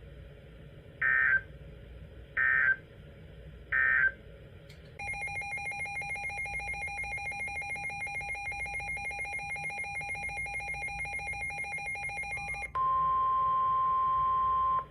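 Three short screeching bursts of EAS/SAME digital data tones, the end-of-message code closing a NOAA Weather Radio alert. About a second later comes a pulsing electronic alarm of several tones, ringing like a phone, for about eight seconds. It is followed by about two seconds of a single steady tone: the 1050 Hz NOAA Weather Radio warning alert tone that precedes the severe thunderstorm warning.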